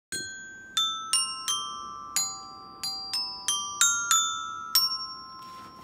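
A children's glockenspiel, its metal bars in a plastic case, struck with mallets, playing a short melody of about eleven ringing notes, each dying away before the next. The last note falls a little before five seconds in.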